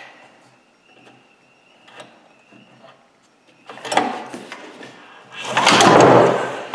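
Recoil starter rope of a 196cc 168F single-cylinder diesel engine pulled by hand, the engine turning over dry, with no oil or fuel in it yet, to check that it turns: a short tug about four seconds in, then a hard full pull near the end as the rope whips out and the engine spins over against its heavy compression.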